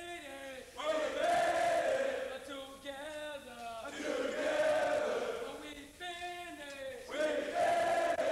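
A group of men's voices singing in unison, a phrase with a long held note that falls away and repeats about every three seconds.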